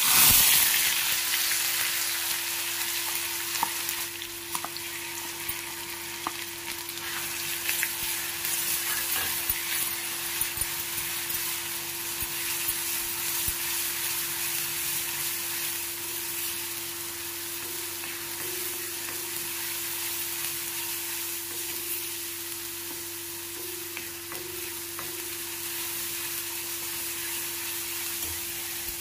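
Ground onion-and-garlic paste sizzling as it hits hot oil with cumin seeds in a steel kadhai, loudest right at the start and settling into a steady fry. A spatula stirs and scrapes through it with occasional light clicks against the pan.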